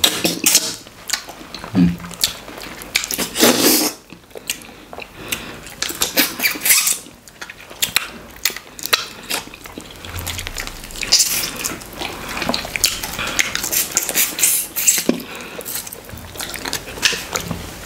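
Eating by hand: fufu pinched off, pressed into slimy okra stew on a plate and put in the mouth, with many short wet clicks, squelches and smacks of fingers, food and lips.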